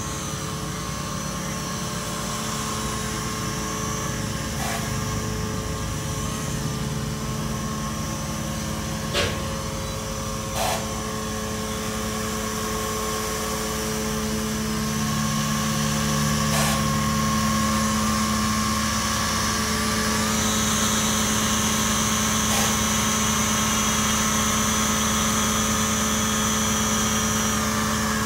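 Zuhafa 720P foldable quadcopter's small electric motors and propellers whining steadily in flight. The whine gets louder about halfway through as the drone comes in close and shifts higher in pitch a few seconds later, with two short clicks in the middle.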